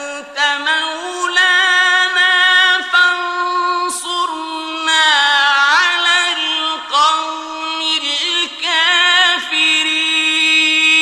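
Solo male voice reciting the Quran in melodic tajweed: long, drawn-out notes with ornamented, wavering pitch, broken by short breaths between phrases.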